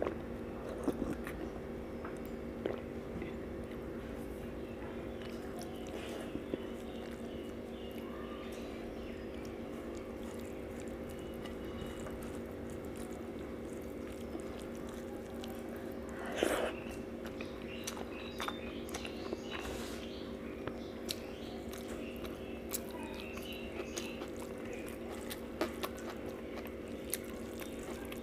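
A person eating rice and dal with her hand: quiet chewing and mouth sounds, with scattered light clicks of fingers on a steel plate and one louder noise about sixteen seconds in. A steady low hum runs underneath.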